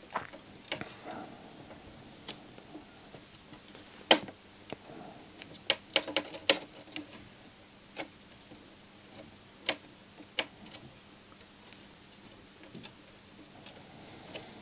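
Scattered small clicks and taps of hand-soldering work on a circuit board, as the soldering iron and a fine wire are handled against it. The loudest is a sharp click about four seconds in, with a quick cluster of clicks around six seconds.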